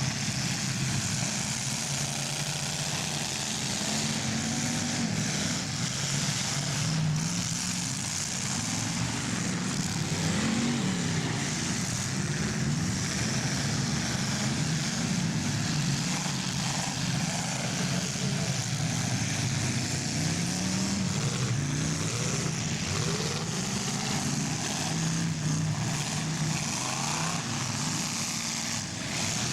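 Several big demolition derby cars' engines revving up and down at once, their pitches rising and falling over one another.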